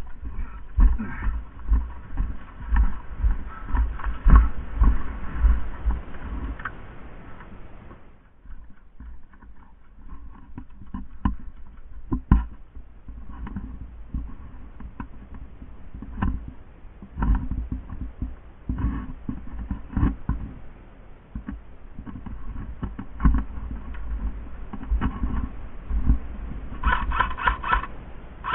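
Irregular thumps and sharp clicks of movement and handling noise. Near the end comes a fast series of short, evenly spaced high-pitched chirps.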